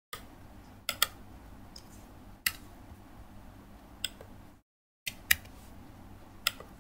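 Scattered sharp clicks of laptop keys and mouse buttons during typing, about eight in all, some in close pairs, over a low steady room hum that drops out briefly past the middle.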